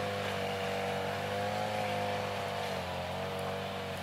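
A small engine running steadily, its pitch wavering slightly and dropping a little near the end.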